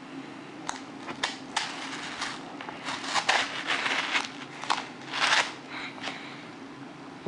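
Small folding knife slicing along the paper top edge of a cushion mailer envelope: a few sharp clicks, then scratchy cutting and tearing of the paper in spurts, the loudest about five seconds in.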